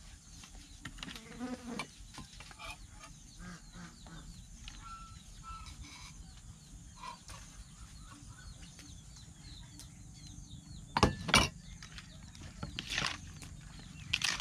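A knife chopping on a wooden cutting board: sharp knocks, a loud pair about eleven seconds in and more near the end, over insects chirping with quick repeated chirps throughout.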